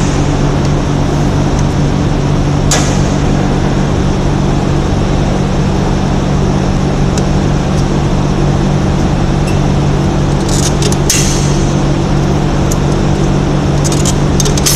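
Steady, loud mechanical hum with a few fixed low tones, with sharp metallic clicks over it as drum brake springs and parts are worked off the backing plate with a brake spring tool. There is one click about three seconds in and a quick cluster of clicks around ten to eleven seconds.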